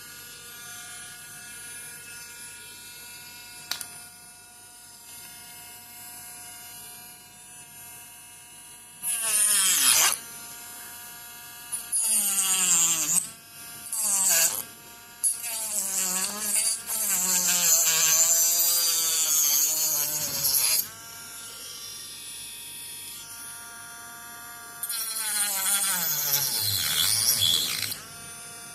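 Mini grinder's small electric motor whining steadily. About five times it is pressed into a Tamiya Mini 4WD part to cut it: the pitch sags and wavers under the load and a loud, hissing grinding noise comes in. The longest cut, about six seconds, falls in the middle.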